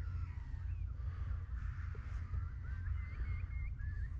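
Birds calling: several short, wavering calls, most of them bunched together about three seconds in. A steady low rumble runs underneath.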